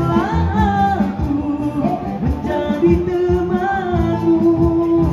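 Live song: a singer through a microphone and PA, backed by a small band with drums, keyboard and guitar.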